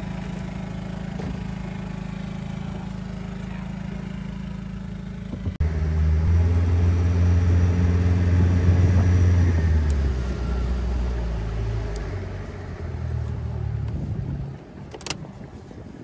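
Boat outboard motor running steadily at low throttle, then opened up about five and a half seconds in, louder for several seconds before easing back and dropping away to a low idle near the end.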